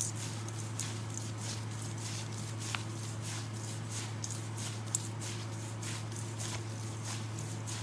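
Gloved hands squeezing and tossing wet, chili-seasoned cabbage in a stainless steel bowl: quick, irregular squelching and rustling strokes with a couple of sharper ticks, over a steady low hum.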